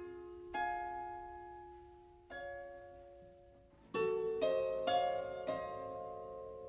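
Slow instrumental background music of plucked-string notes, each ringing and fading, with a louder group of notes about four seconds in.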